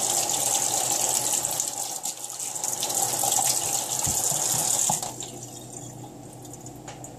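Kitchen faucet running into a stainless steel sink while soapy glass lampwork beads are rinsed by hand under the stream. The water is shut off about five seconds in.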